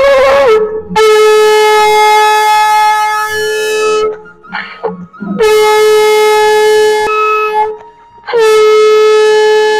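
Conch shell (shankh) blown: a short note that rises in pitch at the start, then three long steady blasts on one pitch with brief breaks between, the last still sounding at the end.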